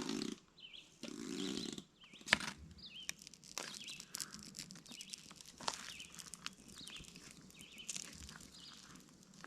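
Scattered rustling and sharp clicks, with a few short, faint bird chirps.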